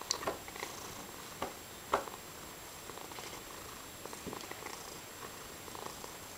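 Tabby cat purring steadily while chattering, with short, irregular clicky chatters over the purr; the loudest comes about two seconds in.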